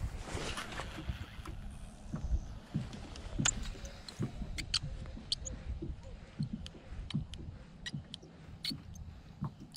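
Small water sounds and light knocks against a canoe hull, with scattered short clicks, as of tackle and a rod being handled in the boat.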